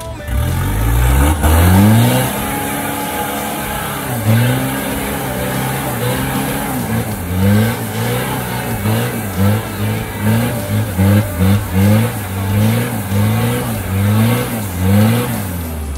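A 4x4's engine revving hard, loudest a couple of seconds in. It then rises and falls in quick repeated revs, a little under two a second, through the second half as the throttle is worked on and off.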